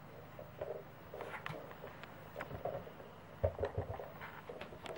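Pembroke Welsh corgi nosing and pushing a treat toy around on a fabric mat: scattered knocks and rustling, with a short run of louder knocks about three and a half seconds in.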